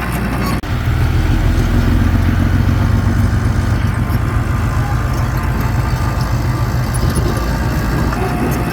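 Heavy-equipment diesel engine running steadily, deep and loud, stepping up in loudness about half a second in.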